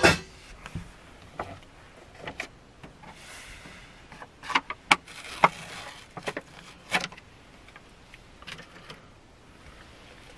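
A clank of pots right at the start, then handling noises as a plastic utensil stirs and taps in a paper instant-noodle cup: a few separate sharp clicks and soft scraping.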